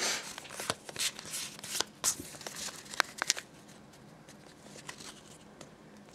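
Pokémon trading cards and their foil booster-pack wrapper being handled: a quick run of rustles, flicks and crinkles over the first three and a half seconds, then only light, sparse card handling.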